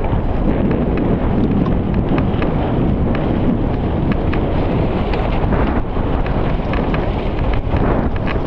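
Wind buffeting the microphone of a mountain biker's ride camera, a loud steady rush, with scattered sharp clicks and rattles from the bike.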